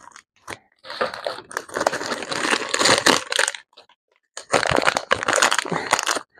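Clear plastic packaging crinkling and crackling as it is handled and opened by hand, in two stretches with a short pause about four seconds in.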